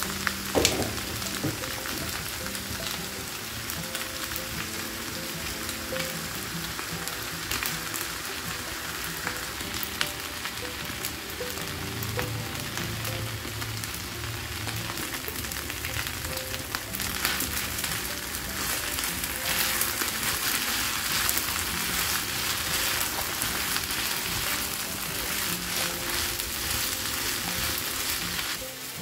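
Fried rice sizzling in a hot wok, with the scrapes and clicks of a spoon and spatula stirring it. There is a sharp click just after the start, and the sizzle grows louder about two-thirds of the way through.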